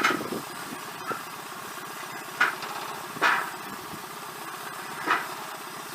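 An engine running steadily at a low idle, with four short, sharp knocks or clanks over it, the loudest at the very start.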